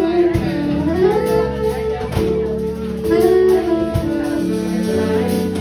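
Live jazz band playing: a saxophone carries the melody, sliding up into some notes, over electric guitar, bass and drums.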